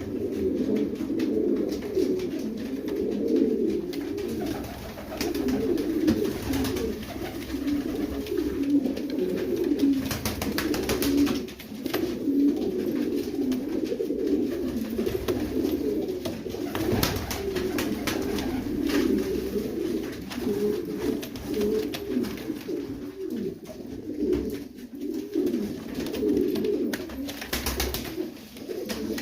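A pair of domestic pigeons, male and female, cooing almost without pause, their low coos overlapping, in a small room. A few faint clicks or rustles run through it.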